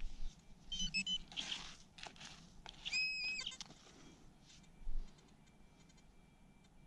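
Hands crumbling and sifting dry, clumpy soil, with rustling and gritty crumbling in a few bursts and a dull thump near 5 s. Two short high-pitched tones sound over it, one around a second in and a held one about three seconds in.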